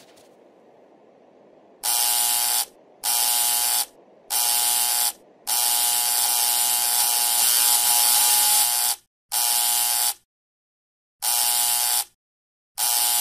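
Harsh electronic wrong-answer buzzer sound effect, sounding in a series of loud blasts starting about two seconds in: three short ones, one held for about three and a half seconds, then more short ones.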